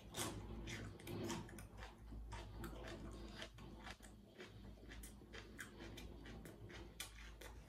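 Close-miked chewing of raw red bell pepper, with crisp, wet crunches coming irregularly several times a second.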